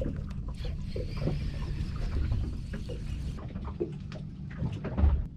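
Small-boat sounds: a steady low rumble, scattered light knocks and clunks, a hiss for about two seconds starting a second in, and a heavier thump near the end.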